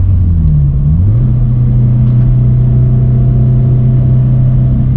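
Turbocharged 2015 Scion FR-S flat-four engine droning steadily while driving at highway speed. Its pitch rises about a second in and then holds steady.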